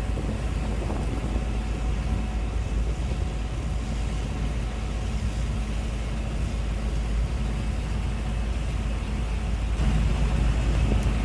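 Gleaner S98 combine harvester running steadily under load, a continuous machine drone with deep rumble, growing a little louder near the end.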